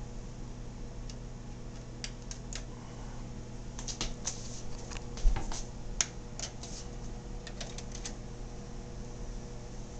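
Scattered light clicks and ticks over a steady low hum, with a single dull knock about five seconds in.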